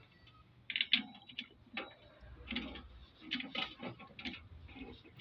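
Irregular light clicks and knocks of hands working on parts of a vintage VW engine, a dozen or so sharp ticks starting about a second in.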